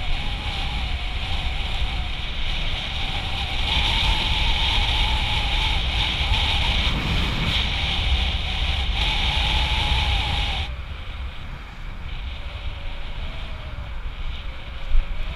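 Bicycle riding along an asphalt path: wind buffets the microphone over a steady low rumble and hiss from the wheels. A faint wavering whine runs through it. About two-thirds of the way in, the noise gets quieter and the whine drops lower in pitch as the bike slows.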